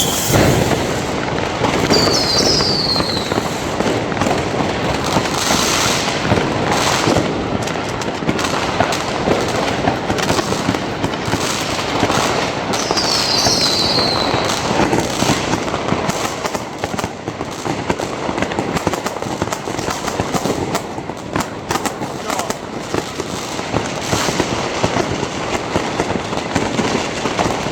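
Consumer fireworks and firecrackers going off on all sides in a continuous, dense popping and crackling. Twice, a whistling firework's pitch falls, about 2 seconds in and again about 13 seconds in.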